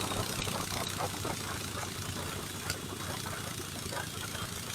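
A vehicle engine running steadily with a low hum, with a single short click a little past the middle.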